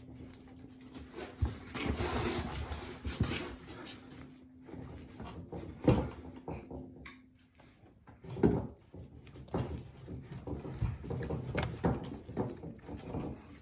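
Irregular scraping, rustling and a few sharp knocks as the metal-mesh-reinforced power lead of an under-floor heating mat is pushed and twisted up a 1/2-inch PVC pipe.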